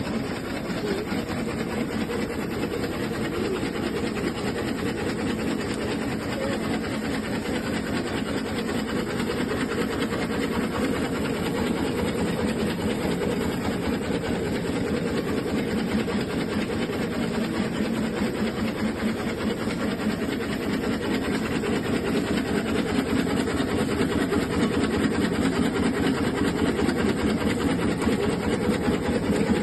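Tobacco-leaf sewing machine running continuously with a rapid, steady mechanical clatter, growing slightly louder toward the end.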